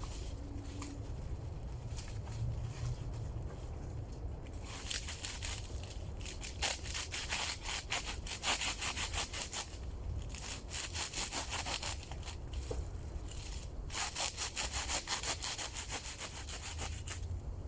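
Dry reed stems being cut to length with fast back-and-forth sawing strokes, in three bouts of several seconds each, the first starting about five seconds in.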